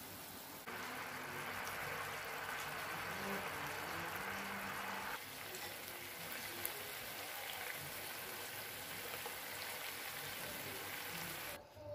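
Chicken wings sizzling and bubbling in a pan: a steady hiss that shifts abruptly about five seconds in and cuts off just before the end.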